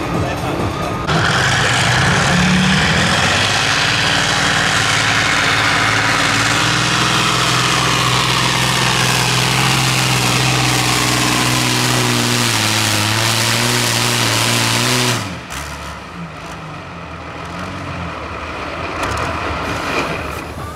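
Modified pulling tractor's engine at full throttle dragging a weight-transfer sled: a loud, steady engine sound that rises in pitch over the first couple of seconds, sags in pitch as the sled bogs it down, then cuts off suddenly about fifteen seconds in as the pull stops a couple of metres short of a full pull.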